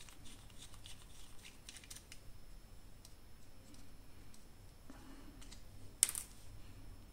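Faint ticks and small clicks of a precision crosshead screwdriver working small screws out of a plastic tracker housing, with one sharper click about six seconds in.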